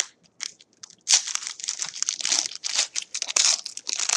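Foil trading-card pack wrapper crinkling and tearing as it is opened. A few light clicks at first, then steady crinkling from about a second in.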